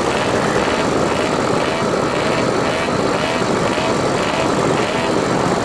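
Moped engines running steadily during a group ride, with a short rising-and-falling tone repeating about twice a second over them.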